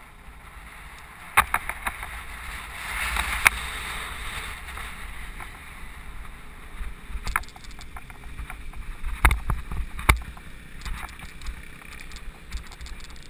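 Mountain bike ridden on pavement, heard from a camera on the bike: wind buffeting the microphone with a steady rumble. Several sharp knocks and rattles come as the bike goes over bumps.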